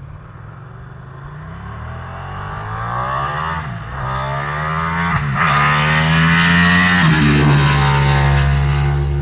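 Ducati 959 Panigale's Superquadro L-twin engine accelerating hard toward and past the listener, its pitch climbing and dropping back at each of several upshifts. It grows steadily louder and is loudest near the end as the bike goes by.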